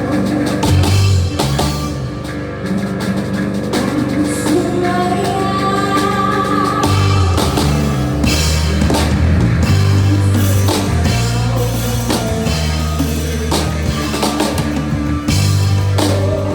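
A live rock band playing: drum kit, bass and guitar, with the bass notes changing every second or two under steady drum hits.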